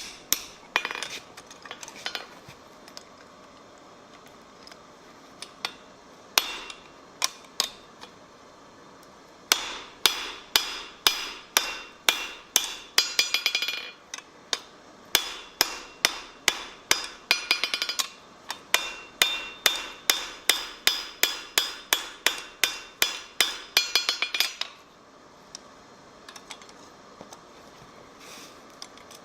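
Blacksmith's hand hammer forging steel on an anvil, ringing blows at first scattered, then in steady runs of about two to three a second with short pauses, stopping about 25 seconds in.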